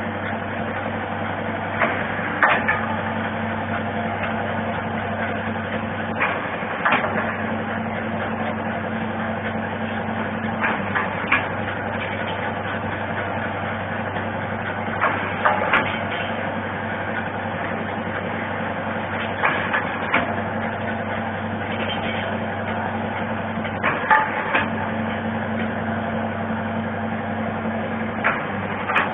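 Eye-drop bottle cap sealing machine running with a steady motor hum. A sharp mechanical clack, often two in quick succession, comes every few seconds as it works through the bottles.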